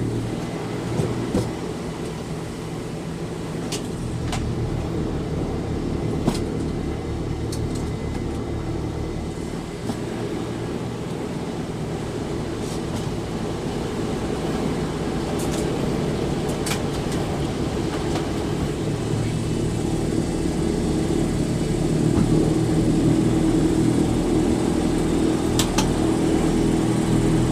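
Blimp engines droning steadily, growing louder over the stretch, with a few sharp clicks about a second in and again around six seconds.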